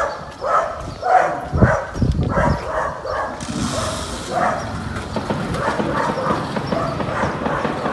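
A dog barking repeatedly, about two barks a second at first, then more scattered barking.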